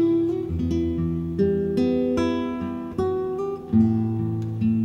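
Background music: acoustic guitar playing plucked notes and chords, each note starting sharply and fading.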